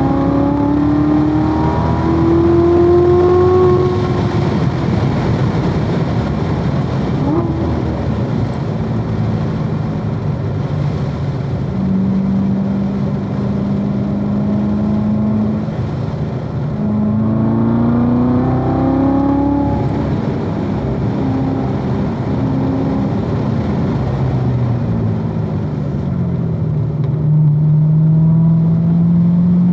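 2016 Corvette Z06's supercharged 6.2-litre V8 under hard track driving, its pitch climbing through the gears on acceleration and falling away when lifting off for corners, with steady tyre and wind noise underneath.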